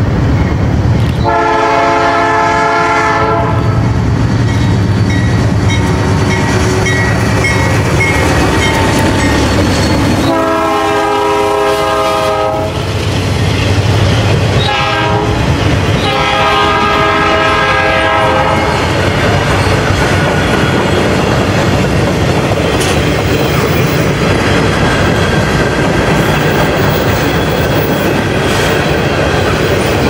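A CC201 diesel-electric locomotive approaches and passes, followed by its passenger coaches rolling by with a steady clickety-clack of wheels over rail joints. Over it a multi-tone train horn sounds four times, three long blasts and one short toot, the horn edited in from another recording rather than this locomotive's own.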